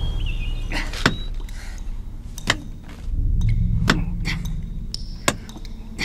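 Four sharp knocks, about a second and a half apart, over a low rumble that swells in the middle.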